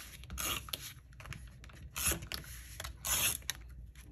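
Tape-runner adhesive dispenser drawn across cardstock, laying down glue tape in three short zipping strokes with small clicks between.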